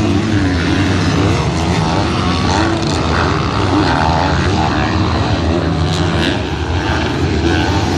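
Several MX2-class motocross bikes racing, their engines revving up and down over and across one another.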